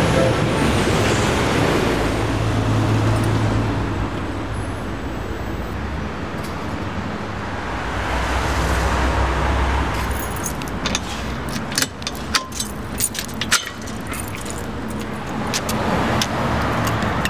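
Road traffic at a city intersection, a steady low rumble of passing cars and trucks. From about ten seconds in, a run of sharp metallic clicks and jingles as keys are handled and a door lock is worked.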